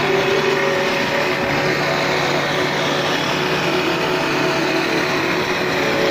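Electric wood-rounding (dowel-making) machine running, its spinning cutter shaving a square wooden stick round as the stick is fed through by hand. The sound is a steady, loud hum with an even cutting noise.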